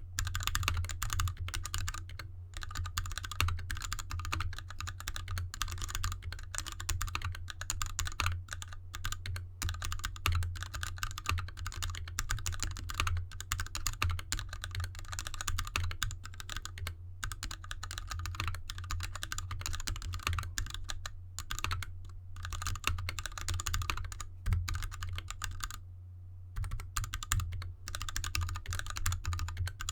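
Steady, fast typing on a GK64X mechanical keyboard with an anodized aluminium case, lubed Gateron Red linear switches and DSA keycaps, resting on an artificial grass mat. There is one short pause a few seconds before the end.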